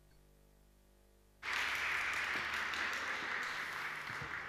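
Near silence for about a second and a half, then audience applause starts suddenly and holds steady, easing off slightly near the end.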